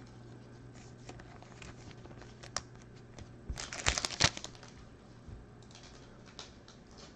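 Hands handling trading cards and foil card-pack wrappers: scattered light crinkles and taps, with a short louder burst of crinkling about four seconds in.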